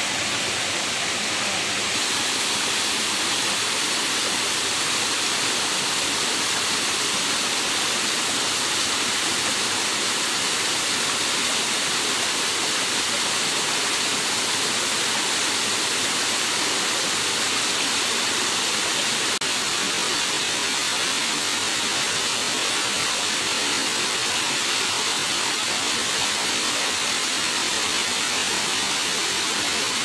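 Steady rushing of a small waterfall and shallow stream running over rocks, an even, unbroken hiss of flowing water.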